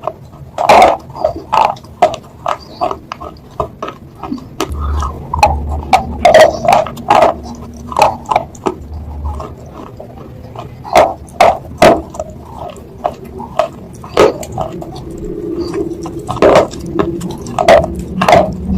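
Close-miked eating of chicken noodles: wet chewing and mouth smacks, sharp and irregular, a few each second.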